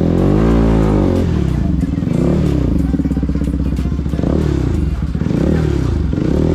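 Bajaj Pulsar RS200 motorcycle's single-cylinder engine revving up and falling back over and over, its pitch rising and dropping about once a second.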